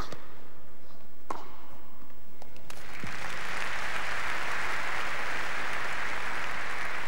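Two sharp tennis ball strikes about a second apart, then a crowd breaking into steady applause a little under three seconds in, marking the end of the point.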